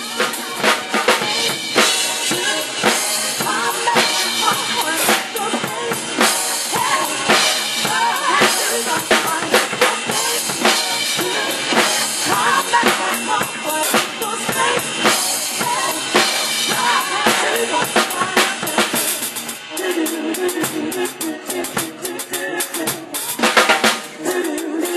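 Drum kit being played in a dense, continuous run of hits on bass drum, snare and cymbals.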